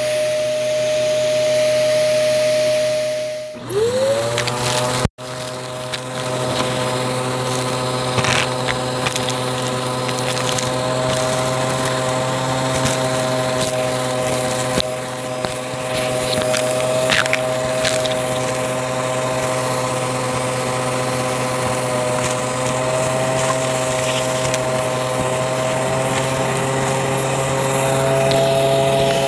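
Vacuum cleaner motor running with a steady whine. About four seconds in it drops out and spins back up, rising in pitch before settling, then runs on steadily with a few sharp crackles of debris being sucked up.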